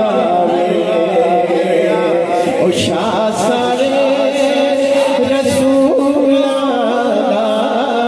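A man singing Punjabi devotional verse in a chanting style through a handheld microphone, drawing out long, wavering held notes.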